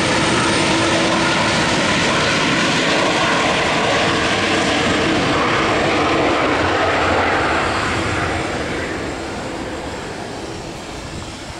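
Airbus A330-200 jet airliner with GE CF6-80E1 turbofans taxiing past at low thrust: a steady jet whine over a rumble, fading from about eight seconds in as the aircraft moves away behind blast barriers.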